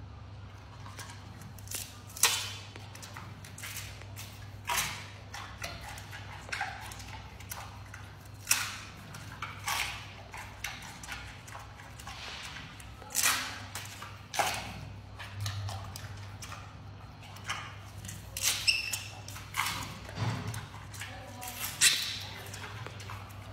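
Giant panda biting and chewing a bamboo shoot: irregular crunching bites and snaps every second or two, over a steady low hum.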